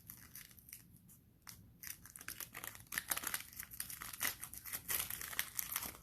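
Trading card pack wrapper being torn and crinkled by hand, with scattered rustles at first and a busier run of crinkling from about a second and a half in.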